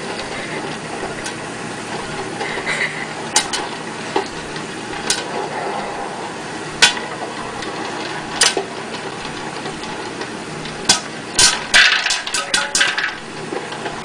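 Electric popcorn popper with a clear dome lid running, a steady sizzling hiss with kernels popping one at a time, then a quick run of louder pops near the end.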